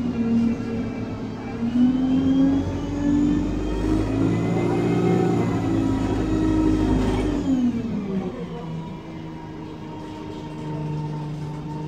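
An ADL Enviro 200 bus's engine and Voith automatic gearbox heard from inside the saloon as the bus pulls away, the drivetrain whine rising in pitch. About seven and a half seconds in the pitch drops sharply, as at a gear change. After that it runs lower and quieter with a faint steady whine.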